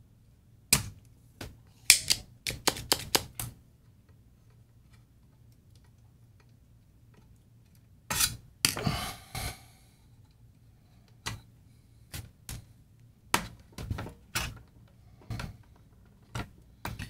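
Sharp clicks and taps of tools and small metal parts against a CD changer's sheet-metal chassis and circuit board. A quick run of clicks comes about two seconds in, a scraping rattle around eight seconds in, then scattered single clicks.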